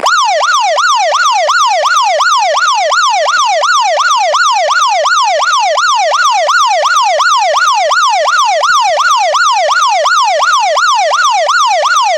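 Smartphone anti-theft alarm app sounding a loud electronic siren, a fast wail sweeping up and down about two and a half times a second; it starts and cuts off abruptly. The alarm is set off when the phone is touched or unplugged from its charger.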